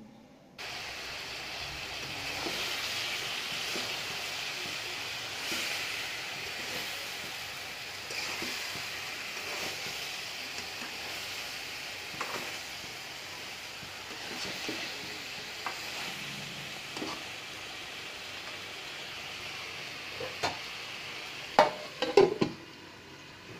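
Vegetables sizzling in a hot wok as they are stir-fried, with a metal spatula scraping and tapping against the pan. Near the end come a few loud metal clanks.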